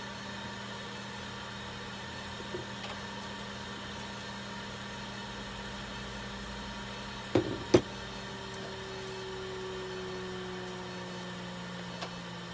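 Steady electrical hum of running clinic equipment, with a low drone and a faint higher tone that comes in about eight seconds in. Two sharp knocks sound close together about seven and a half seconds in.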